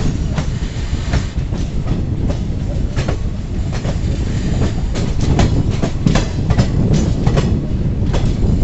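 Indian Railways passenger coaches rolling past on the adjacent track: a steady low rumble with irregular metallic clacks as the wheels cross rail joints and points, the clacks coming thicker about halfway through.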